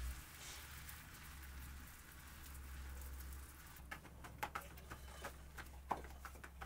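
Soft, irregular pats and slaps of flatbread dough being stretched and flipped between the hands, starting about halfway in, over a faint even patter-like hiss.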